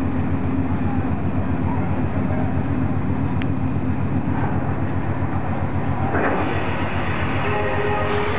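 Steady low drone of the car ferry's engines and machinery running while the ship lies moored at the quay with its stern ramp down. A few higher tones come in near the end.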